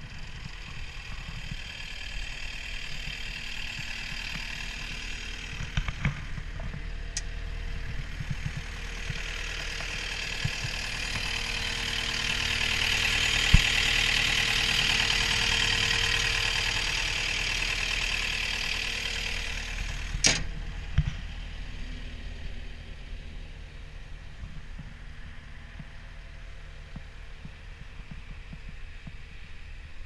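2014 Cat 262D skid steer's diesel engine idling steadily. It grows louder, with a rising hiss, in the middle stretch while close to the open engine bay, then eases back; a few sharp clicks and knocks stand out.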